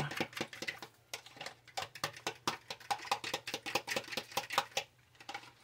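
Raw eggs being beaten with a utensil in a plastic container: quick clicking strokes of the utensil against the container, several a second, with a brief pause near the end.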